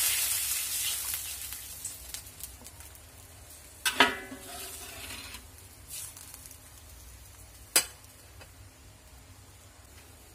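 Water poured into a hot wok hissing and dying away over the first few seconds. About four seconds in a metal spatula strikes the wok with a ringing clang, followed by lighter knocks and one more sharp knock nearly four seconds later.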